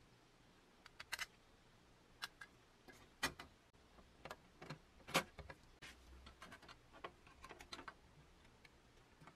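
Small metallic clicks and taps of brass bolts and nuts being fitted to the sheet-metal plates and strut of a 1930 Meccano seaplane wing, scattered and irregular, the loudest click about five seconds in, with a run of faint ticks a little later.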